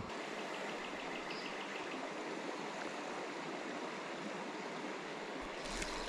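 Steady rush of a flowing creek, with a faint quick ticking for about a second near the start.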